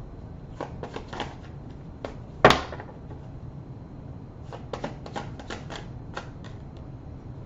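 Tarot cards being handled and laid down: a scattering of light clicks and taps, with one louder snap about two and a half seconds in.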